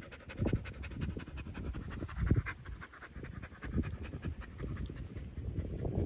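Boxer dog panting with its mouth wide open, quick rhythmic breaths.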